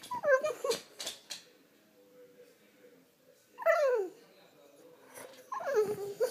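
French bulldog whining to wake its owner: three drawn-out whines, each falling in pitch, near the start, midway and near the end.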